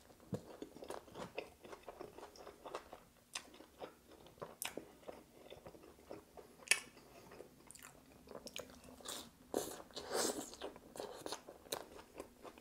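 Close-up chewing and crunching of a buffalo chicken sandwich on toasted bread, with irregular crisp crackles and a louder noisy stretch about ten seconds in.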